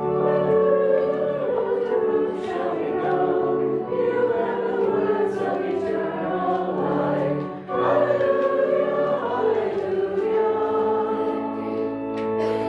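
Group of voices singing with pipe or electronic organ accompaniment: the Gospel acclamation sung before the Gospel reading. It is sung in two phrases, with a short breath between them about eight seconds in.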